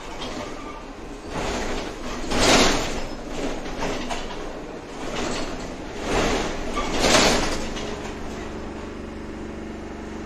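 Ride noise inside a moving electric tram or trolleybus: rushing swells of running noise, loudest about 2.5 and 7 seconds in, settling from about 8 seconds into a steady hum.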